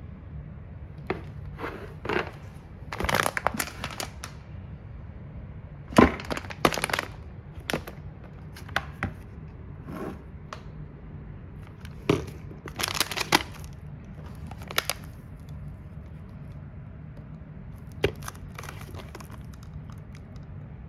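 Packaging and plastic items of a car detailing kit being handled while unboxed: irregular knocks, clicks and crinkling, the loudest a sharp knock about six seconds in, over a steady low hum.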